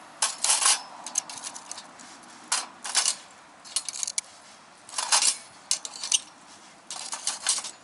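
Light metallic clinks and clatters in irregular clusters, about eight of them, as parts of a small firewood grill are handled and shifted.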